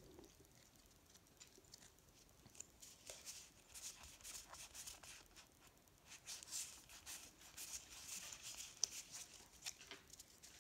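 Faint flicking and rustling of a stack of Pokémon trading cards being thumbed through by hand, a run of light card clicks that comes quicker and thicker after the first few seconds.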